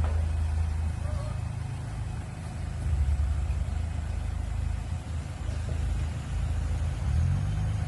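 Off-road SUV's engine running low and steady as it creeps down a steep dirt trail, its note rising briefly near the end.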